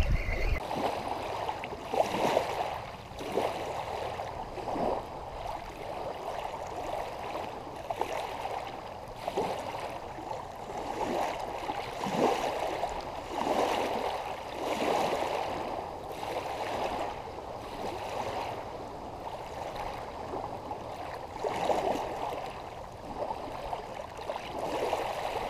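Small lake waves lapping and washing over a pebble and cobble shoreline, swelling in irregular surges every couple of seconds.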